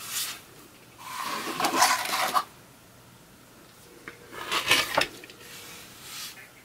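Rotary cutter blade rolling through fabric ribbon on a cutting mat: a few rasping cuts, the longest from about one to two and a half seconds in and another near five seconds, with quiet pauses between.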